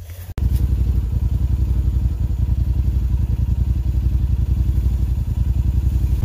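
Side-by-side UTV engine idling steadily, a low, even pulsing that cuts in abruptly about half a second in.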